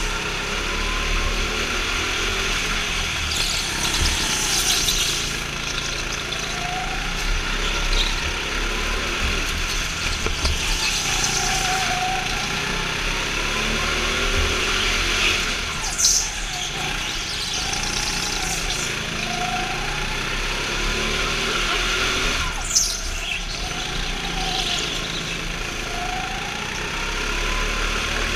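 Go-kart engine heard onboard while driving laps, its pitch rising and falling over and over as the kart accelerates and slows. Two brief sharp sounds stand out, about halfway through and again some six seconds later.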